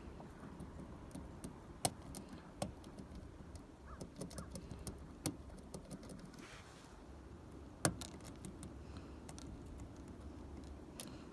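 Lishi pick tool working in a 2001 Ford Mustang door lock's wafer cylinder: scattered small metallic clicks and taps, a few of them sharper, over a low steady background rumble.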